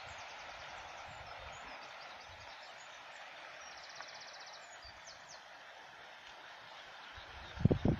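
Steady outdoor rushing background with faint, high small-bird chirps and a fast trill about four seconds in. Near the end, a couple of sudden low thumps.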